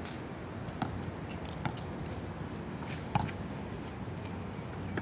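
A basketball bouncing on asphalt: several sharp knocks at uneven intervals, the loudest about three seconds in, over a steady rushing background noise.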